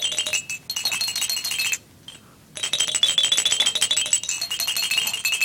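A tinkling chime tune of quick high-pitched notes, breaking off briefly about two seconds in and then starting again.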